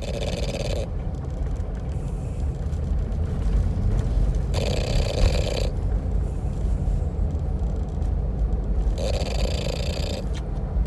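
French bulldog snoring: a steady low rumble, with three louder breaths about four and a half seconds apart.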